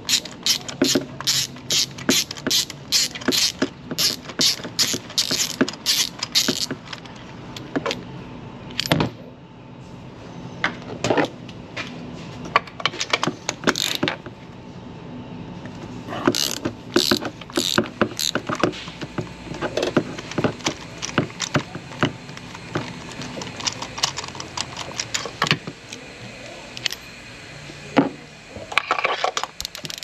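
Hand ratchet clicking in quick runs as spark plugs are unscrewed one after another, with pauses between the runs.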